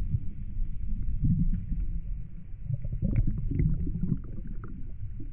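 Muffled underwater sound in the sea, heard through a submerged camera: a low rumbling wash with bubbling and faint ticks, busier about halfway through.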